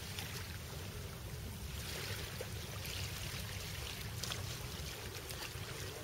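Small sea waves washing onto the shore in soft surges every second or two, over a steady low rumble.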